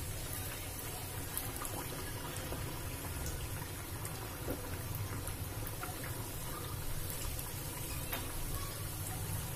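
Samosas deep-frying in hot oil in a kadhai on a low flame: a steady sizzle with scattered small pops and crackles.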